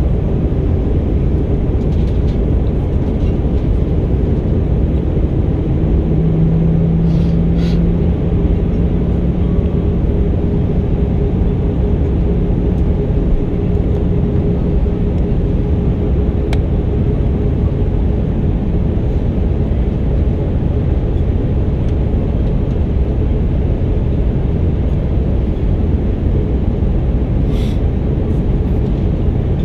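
Steady cabin roar of an Airbus A319 in flight on descent: engine and airflow noise. A steady low hum comes in about six seconds in and stops about halfway through.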